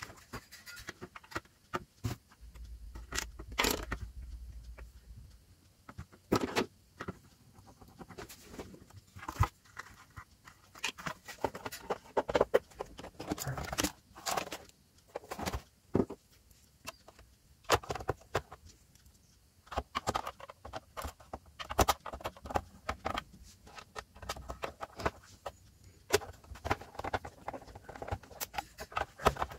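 Hand reassembly of a plastic-cased voltage stabilizer: scattered clicks, knocks and small rattles of the plastic case being handled and turned over, and of screws being driven in with a hand screwdriver.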